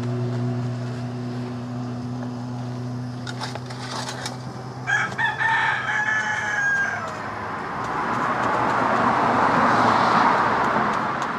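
A rooster crows once, a drawn-out call about five seconds in that drops in pitch as it ends, over a steady low hum that fades out around the same time. Near the end a broad rush of noise swells up and dies away.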